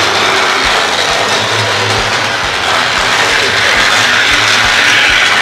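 Spin Master Paw Patrol Adventure Bay Railway battery-powered toy locomotive running on its plastic track, its small motor whirring steadily, with a regular light clicking about twice a second.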